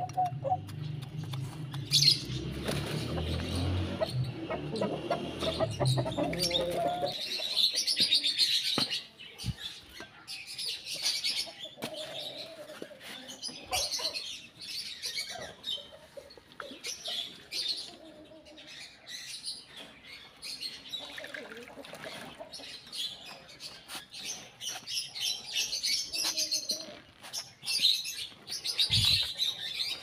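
Small birds chirping and twittering in short, scattered bursts, over a low rumble that stops about seven seconds in.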